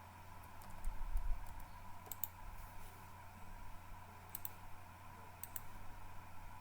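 Light, sharp clicks, several in quick pairs, over a steady low hum, with a soft low bump about a second in.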